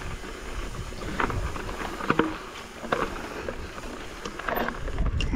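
Pivot Firebird mountain bike riding over loose rocky singletrack: tyres crunching on gravel, with a few sharp knocks and rattles from the bike over rocks. Wind rumbles on the helmet-camera microphone, strongest near the end.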